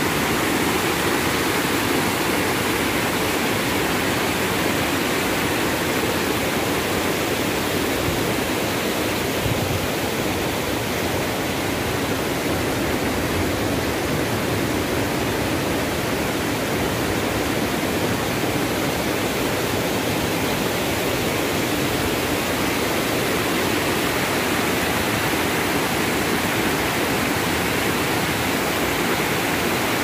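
A waterfall and rocky rapids, with water rushing over boulders into a pool in a steady, unbroken roar.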